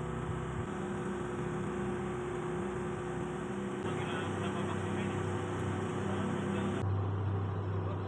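Steady hum of running shipboard machinery: a mechanical drone with several steady tones in it. About seven seconds in it changes abruptly to a deeper, plainer hum.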